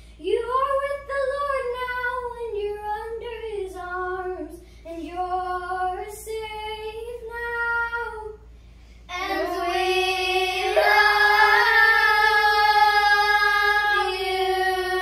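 Young girls singing a slow song together without accompaniment, breaking off briefly about eight seconds in, then holding one long note for the last six seconds or so.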